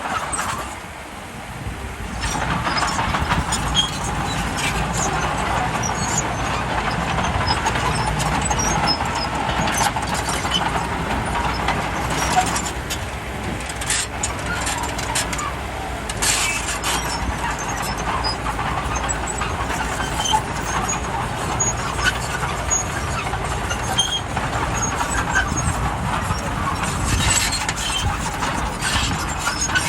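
Bulldozer's diesel engine running steadily. It drops briefly about a second in, then picks back up, with occasional sharp knocks.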